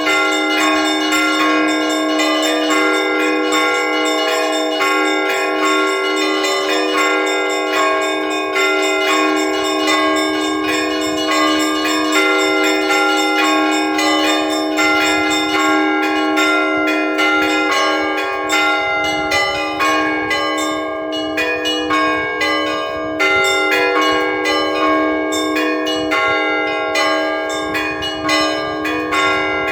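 Russian Orthodox church bells rung by hand in a festal peal: several bells of different pitches struck in quick, continuous succession over a lower bell that keeps sounding.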